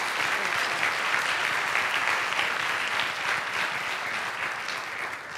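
Audience applauding: many hands clapping in a steady, dense patter that eases slightly near the end.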